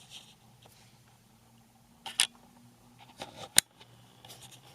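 A few light clicks and taps over a faint steady hum, the sharpest click about three and a half seconds in.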